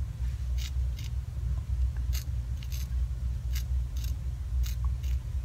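Scissors snipping around a hookah grommet to trim its ribs off: about eight short, crisp snips at uneven intervals, over a steady low hum.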